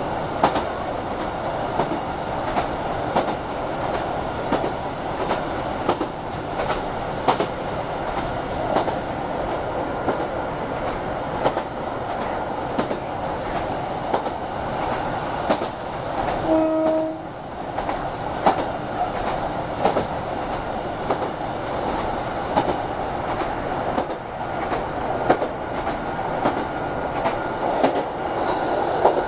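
Diesel passenger train heard from inside the carriage, running steadily with a constant rumble and frequent clicks of the wheels over rail joints. A short single-note horn blast comes about halfway through.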